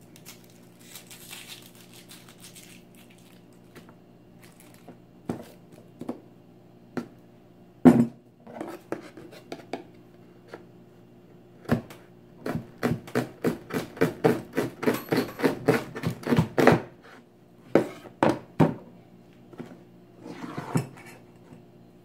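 Kitchen knife slicing through a red onion onto a wooden cutting board: a fast run of sharp cuts at about five a second for some five seconds in the middle, after a single heavy knock on the board a few seconds earlier, with a steady low hum underneath.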